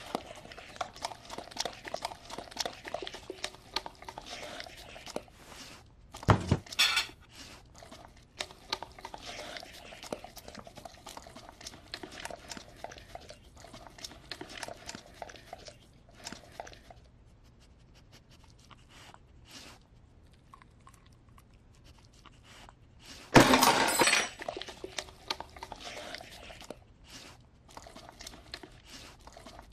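A large long-haired dog clambering over a set dinner table and eating off the plates, with dishes and cutlery clinking and rattling around it. There is a loud thump about six seconds in and a longer, louder clatter about twenty-three seconds in.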